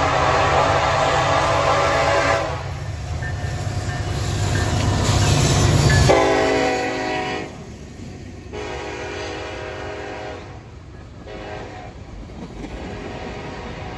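Norfolk Southern freight train passing: the locomotive horn sounds a long chord that stops about two and a half seconds in, then the SD70ACe-led locomotives go by with a swell of engine noise, loudest about six seconds in. After that the freight cars roll past with steady wheel noise and clatter, quieter than the locomotives.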